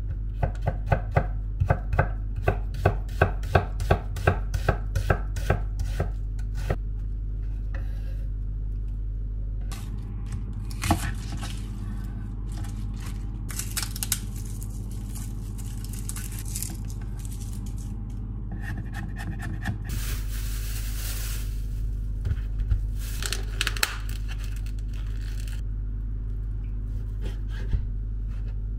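Chef's knife chopping zucchini on a wooden cutting board, about three even chops a second, stopping after about seven seconds. After that come quieter rustling, scraping and a few knocks of kitchen prep on the board and counter, over a steady low hum.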